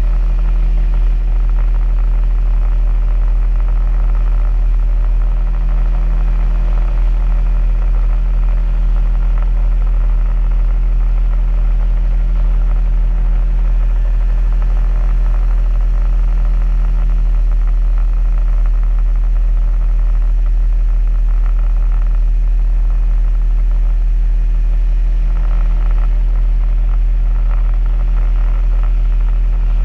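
Outboard motor of a small skiff running at a steady speed, a constant low hum with vibration.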